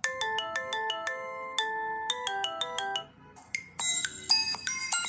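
Ringtones played through a Lenovo A5 smartphone's loudspeaker. A tune of quick, short notes stops about three seconds in, and after a brief pause a different, higher-pitched ringtone starts.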